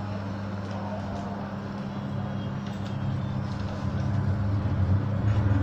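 Interior running sound of an MTR Mid-Life Refurbished (Metro-Cammell) electric train car: a steady low hum from its nose-suspended traction motors under rolling noise, growing louder over the last couple of seconds.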